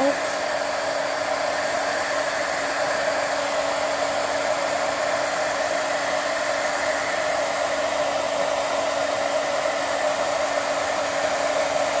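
Stampin' Up! Heat Tool (embossing heat gun) running steadily, blowing hot air to melt clear embossing powder on card stock.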